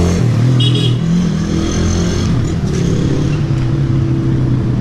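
Motor vehicles running close by in street traffic, a steady engine hum, with a brief high-pitched squeak just under a second in.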